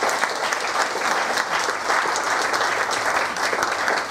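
An audience applauding: many hands clapping in a dense, even spread.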